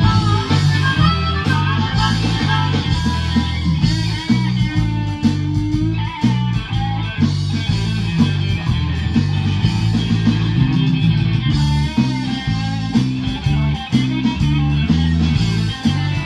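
Live blues-rock band playing an instrumental break: electric guitar over bass and drums with a steady beat.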